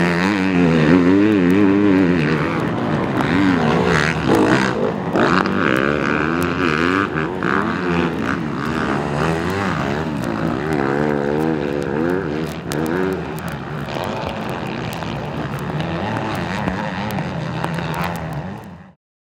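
Several motocross bike engines racing on a dirt track, their pitch rising and falling as the riders work the throttle through corners and over jumps. The sound cuts off suddenly near the end.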